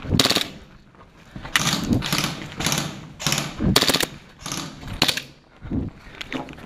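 Full-auto airsoft Glock 18C gas blowback pistol firing a string of short rapid bursts, about a dozen, with brief gaps between them.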